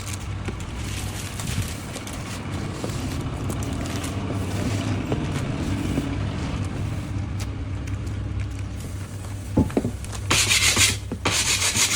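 Steady rubbing and scraping over a low hum, then two loud harsh hissing bursts, each under a second, near the end.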